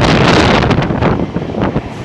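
Loud wind buffeting the microphone aboard the moving Deccan Queen Express train, over the train's running rumble.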